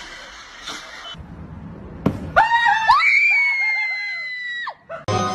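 A loud, high-pitched scream about two seconds in: a few short wavering cries, then one long held note that cuts off suddenly nearly two seconds later.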